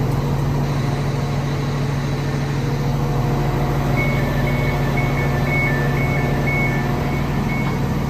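Class 150 diesel multiple unit idling at the platform with a steady low engine drone. About halfway through, a two-tone electronic beep starts repeating, roughly twice a second.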